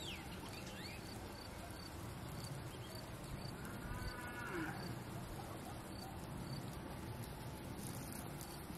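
A farm animal calling once, drawn out, about four seconds in, over a faint steady background hum.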